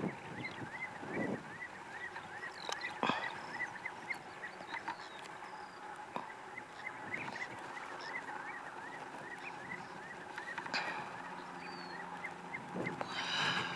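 Ringed plover calling in a steady, rhythmic series of short piping notes, about three a second, as part of its pre-nuptial display. A couple of brief knocks break in.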